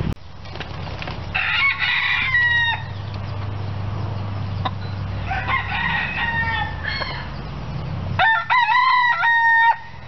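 Roosters crowing three times, the last crow the loudest.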